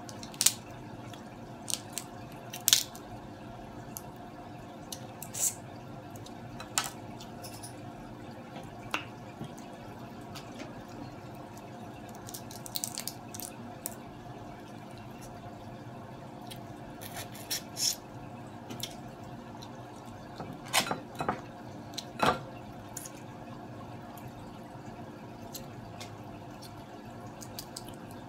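Cooked blue crab being cracked and picked apart by hand, with scattered sharp cracks and small wet clicks and smacks at irregular times, over a steady low background hum.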